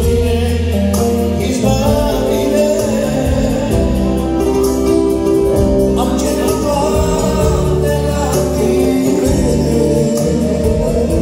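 A man singing a Christian song in Romanian, accompanied by an accordion and a Korg electronic keyboard playing steady bass and chords.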